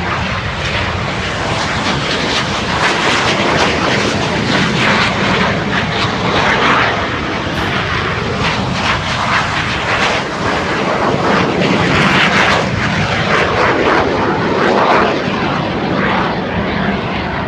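Airplane engine noise: a loud, continuous rushing sound that swells and eases a little.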